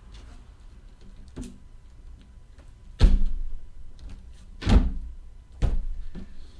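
Sealed trading card boxes being set down and stacked on a table: four dull thumps, the loudest about three seconds in.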